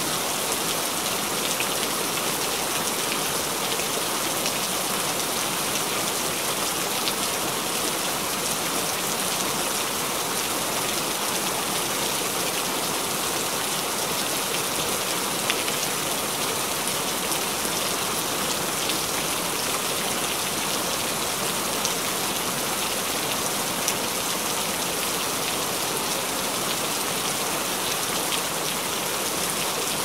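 Steady rain falling, an even hiss with a few louder single drops ticking now and then.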